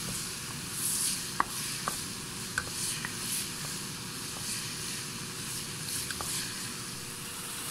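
Chopped onion and tomato sizzling in hot oil in a pan as a wooden spatula stirs them, with a few light ticks of the spatula against the pan.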